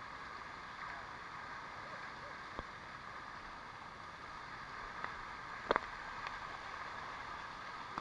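Shallow water running over the rock of a cascading waterfall: a steady rushing hiss, with a few sharp clicks, the loudest a quick double click a little after halfway.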